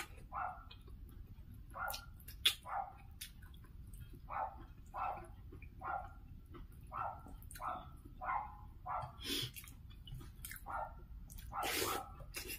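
A dog barking over and over in the background, short even barks about one every half to three-quarters of a second. A few louder sharp close-up noises of eating by hand cut in, the loudest near the end.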